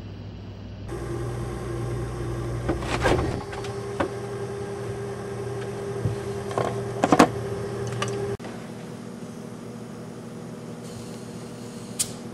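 Steady hum of a kitchen appliance with a held tone, with several sharp clicks and knocks of handling, stopping abruptly about eight seconds in; after it a quieter steady background and one sharp click near the end.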